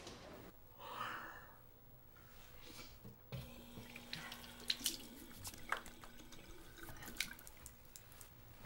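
Tap water running into a bathroom sink while hands are washed under it, with scattered splashes and drips and a faint steady hum from the tap. A short breathy sound comes about a second in, before the water starts.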